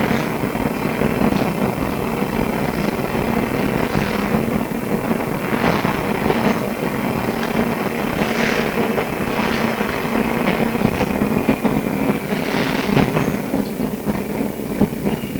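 Interior of a Melbourne SW5 class tram running: a steady low hum under continual rattling and clatter from the car body and wheels. A thin high squeal begins near the end.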